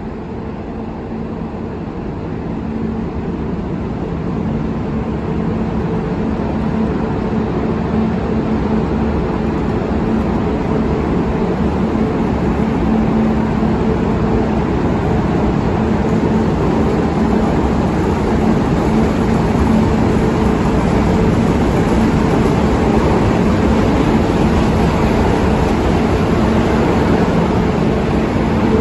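Model train running on the layout: a steady rumble with a low hum, slowly getting louder.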